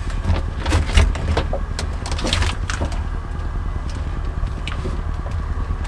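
Wires and corrugated plastic conduit rustling and clicking as a hand pushes through a bundle of wiring, over a steady low rumble.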